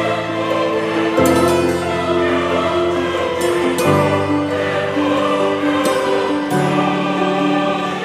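Slow background music of held chords with choir-like voices, the chord changing about every two and a half seconds.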